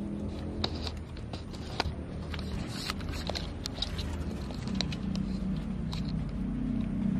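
A mongoose moving down a tree trunk and onto leaf litter: scattered light clicks and scratches, over a steady low hum.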